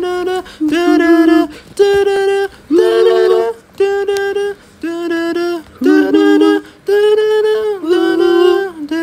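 A wordless vocal melody: a voice singing a string of short held notes, about one a second with brief breaks between, the pitch stepping up and down from note to note.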